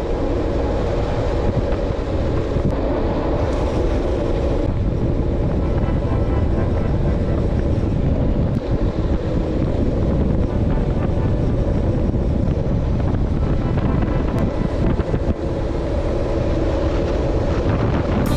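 Wind buffeting the microphone of a camera on a moving bicycle: a steady, loud rumble.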